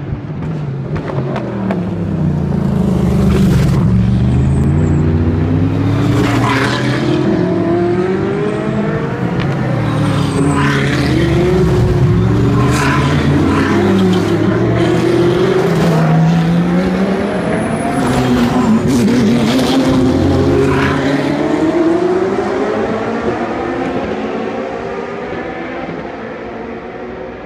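GT racing cars passing one after another through a tight hairpin, their engines falling in pitch as they brake and downshift, then rising as they accelerate away. Several sharp cracks come on the shifts. The engine sound fades over the last few seconds.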